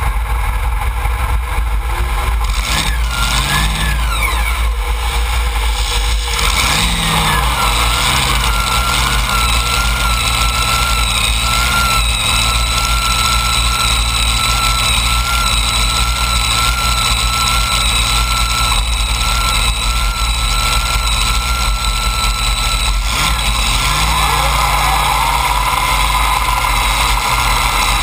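Supercharged Hemi V8 engines of a multi-engine pulling tractor running at a loud, heavy idle, blipped a few times with short revs.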